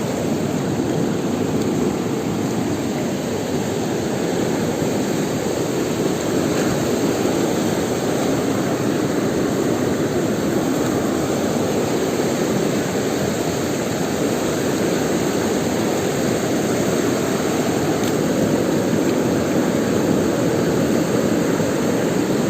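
River running high after the rains, a steady rushing of fast water.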